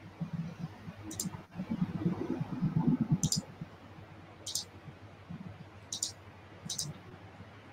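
Computer mouse clicking, about five sharp clicks a second or so apart, as slides are opened for screen sharing. Low muffled noise on the microphone in the first half is the loudest part.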